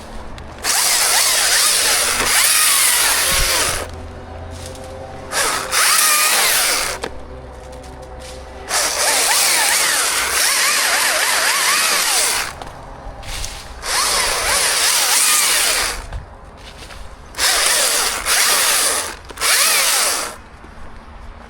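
Chainsaw cutting wood in long bursts at full throttle, dropping back to idle between cuts. Near the end it gives three short revs.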